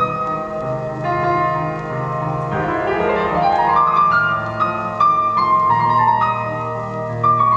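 Piano music played back through a Dynaco A-35 loudspeaker whose crossover network parts have just been replaced, as a listening test. A quick rising run of notes comes about three seconds in and a falling run near the end.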